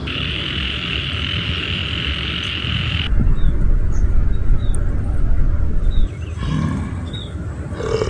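Three short animal sound clips in a row. First a dense frog chorus with a steady high trilling hum for about three seconds. It cuts suddenly to a loud, deep, low rumbling roar for about three seconds, then a lower, quieter growl near the end.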